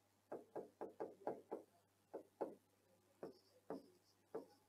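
A pen tip tapping against a writing board with the strokes of handwriting: about a dozen faint, irregularly spaced taps.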